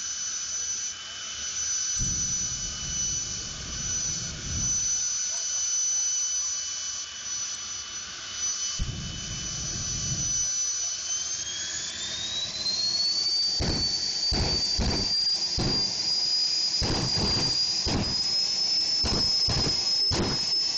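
Jet turbine mounted in a pickup truck's bed running with a steady high-pitched whine, the whine rising in pitch about halfway through as it spools up. Deep rumbles from the jet's flaming exhaust come and go, several in quick succession in the second half.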